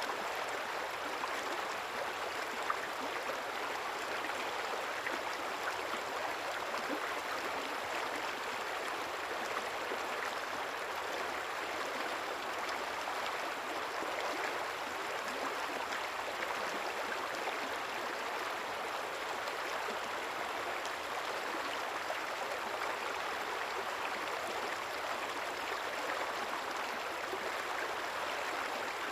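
River water flowing and babbling steadily, a continuous even rush of running water.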